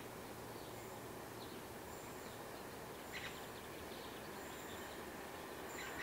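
Faint birds chirping outdoors: short calls at the start, about three seconds in and near the end, with thin high notes between, over steady low background noise.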